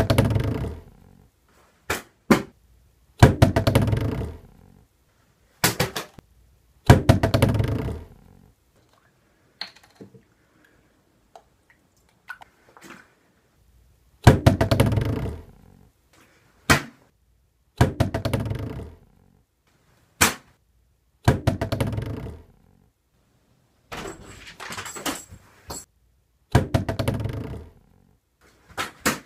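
Plastic water bottle being flipped and landing on a desktop again and again, about a dozen times, a second to a few seconds apart. Each landing is a sharp thunk that dies away over about a second, with a quieter stretch of smaller knocks in the middle.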